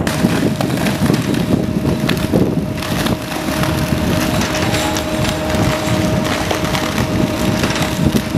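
Belt conveyor running as it carries soaking-wet tunnel spoil and drops it from its discharge chute onto the spoil heap: a dense, steady clatter and splatter over a steady whine.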